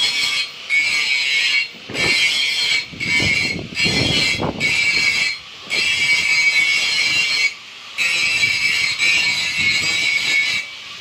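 Stick (SMAW) welding arc crackling and hissing, with several brief breaks in the sound.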